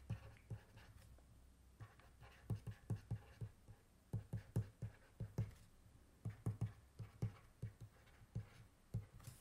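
Faint taps and scratches of a stylus handwriting words on a tablet screen, coming in short irregular clusters of strokes.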